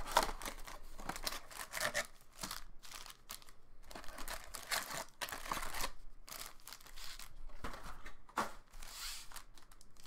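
Plastic wrapping crinkling and tearing in irregular rustles as a sealed box of trading cards is opened by hand and its packs are pulled out.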